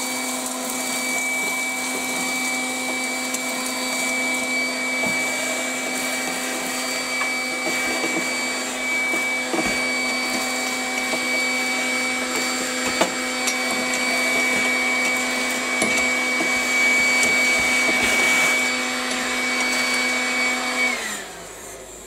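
Makita DCL180 18-volt cordless stick vacuum running with a steady, nice and quiet whine as it sucks wood shavings and metal filings off a drill-press table, with scattered ticks of debris rattling up the nozzle. It is switched off near the end and winds down.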